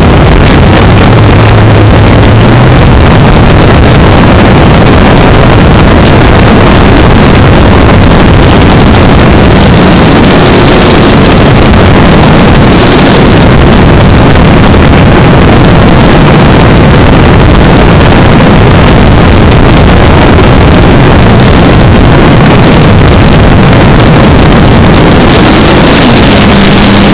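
Onboard sound of a radio-controlled model airplane in flight: its propeller and motor running under heavy wind buffeting on the microphone, loud throughout. Near the end a motor tone rises in pitch as the plane dives.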